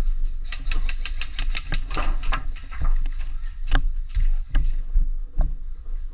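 Airsoft gun firing a rapid string of shots, about eight a second for two seconds, then a few single shots. Under them runs a steady low rumble.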